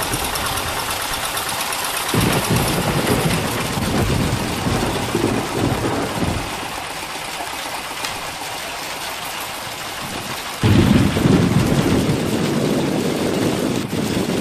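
Heavy rain hissing steadily, with low rumbles that surge and fade and one sudden loud rumbling surge about ten and a half seconds in.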